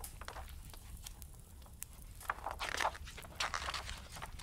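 Pages of a large picture book being turned by hand: a soft papery rustle and scrape, coming in two short spells from about two seconds in.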